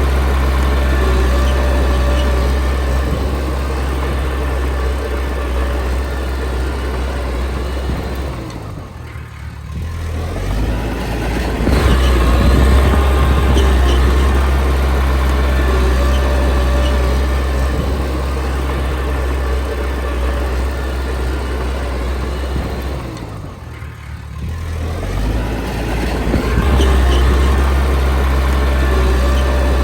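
Komatsu D20P bulldozer's diesel engine working under load. Twice, about fifteen seconds apart, the engine speed drops and then rises again.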